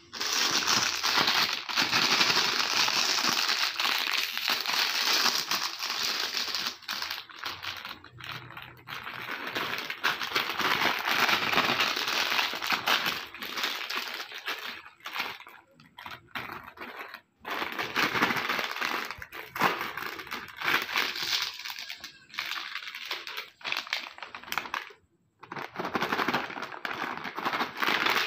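Lay's foil-lined chip packets crinkling and rustling as they are handled and opened by hand, a dense, continuous crackle with a couple of brief pauses. Near the end a plastic biscuit pouch is being handled and opened.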